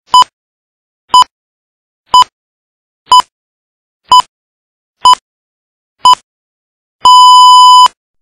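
Film countdown leader beeps: a short, loud, high electronic beep once a second with each count, seven in a row, then a single longer beep of the same pitch lasting almost a second near the end.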